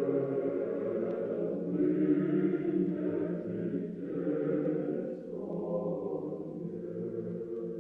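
Slow choral chant: voices holding long notes that change every second or two.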